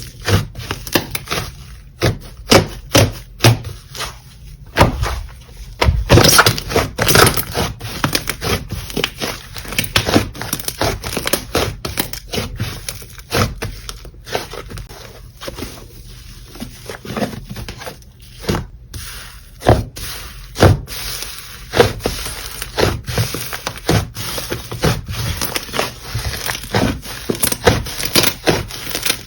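Slime being squished, pressed and stretched by hand close to the microphone, giving a steady run of irregular sticky pops, clicks and crackles with louder clusters of pops now and then.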